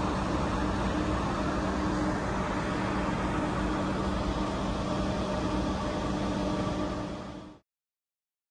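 Steady city-street background noise with a constant low mechanical hum from traffic and site machinery, cutting off abruptly about seven and a half seconds in.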